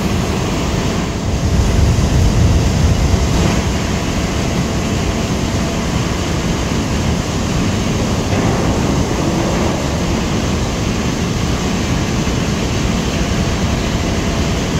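Steady loud rush of turbulent water churning in a concrete pit, under a low machinery rumble with a faint steady hum. The rumble swells for a couple of seconds about a second in.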